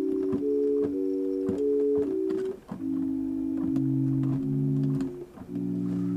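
Computer-synthesized tones from a mathematical sine-and-exponent formula, played as organ-like chords from a keyboard. A quick run of held chords is followed by two longer, lower chords. Each chord cuts off abruptly because the sound has no release.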